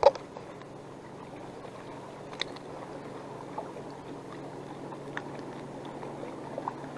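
A brief splash as a crappie is swung up out of the water on the line, the loudest sound, then a steady low hum with a few faint clicks as the fish is handled.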